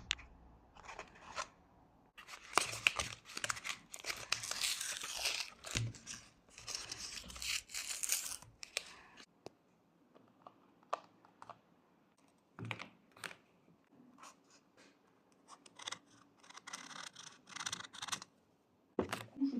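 Rustling, tearing noise with scattered clicks and knocks. A long stretch of it starts about two seconds in and lasts some seven seconds, and a second stretch comes near the end, followed by a knock.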